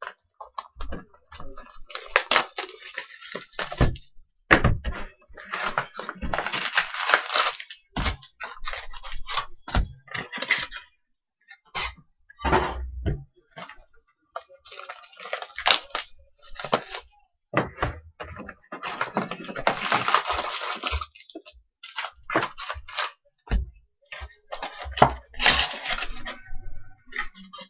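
Trading-card pack wrappers and boxes being torn open and handled: irregular bursts of crinkling and tearing with many small clicks from cards and packaging, and a few dull thumps on the table.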